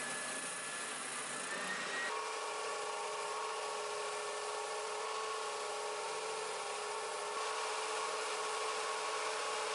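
Benchtop spindle sander running with a steady whine, then about two seconds in the sound switches abruptly to a stationary belt sander running steadily as a wooden chair part is sanded against its belt.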